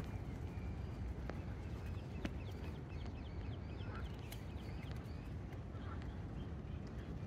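Outdoor ambience with a steady low rumble and scattered sharp ticks. A quick run of high bird chirps comes about three to four seconds in, with a couple of short lower calls around it.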